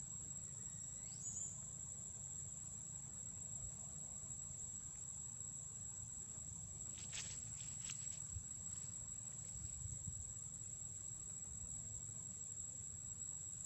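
Faint, steady high-pitched drone of insects such as crickets or cicadas. A short rising whistle comes about a second in, and a quick cluster of three or four sharp clicks about seven seconds in.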